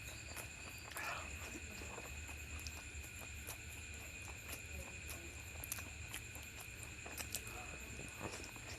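Close-miked eating sounds: chewing with small, irregular wet mouth clicks and smacks, over a faint steady high whine.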